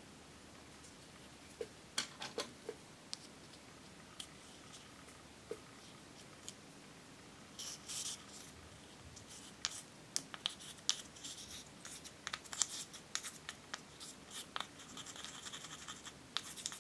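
A plastic spatula scraping pressed shimmer eyeshadow out of its compact: dry scratching strokes and small clicks, a few at first and then dense in the second half.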